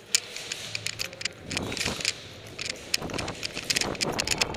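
Quick footsteps on a concrete floor and rattling airsoft gear as a player moves fast, with irregular sharp clicks scattered throughout that grow denser near the end.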